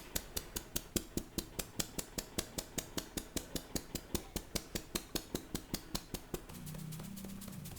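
Rapid, evenly spaced slaps of a percussive hand massage (tapotement), about six sharp strikes a second, which stop about six seconds in. A low, steady hum follows near the end.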